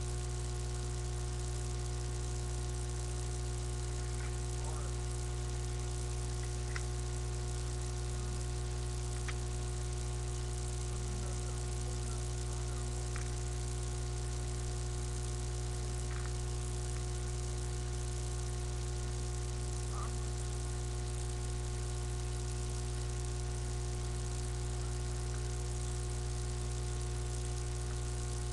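Steady electrical hum with its overtones, with a few faint, scattered clicks.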